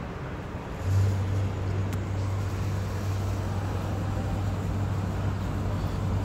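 A steady low mechanical hum starts abruptly about a second in and holds level over street background noise.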